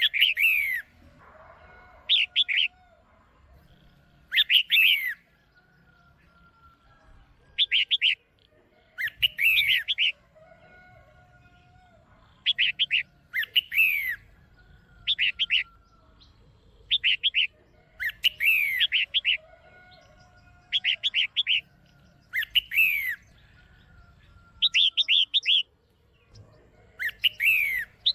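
Red-whiskered bulbul calling: short bursts of quick notes and falling whistles, repeated every second or two. These are a female's calls, of the kind used to stir up male bulbuls.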